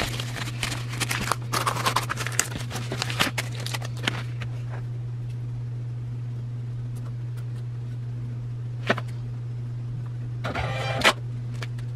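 Plastic baggie, sticker and bubble mailer rustling and crinkling as an order is packed, busiest over the first five seconds, over a steady low hum. A single click near nine seconds and a short burst of handling noise near the end.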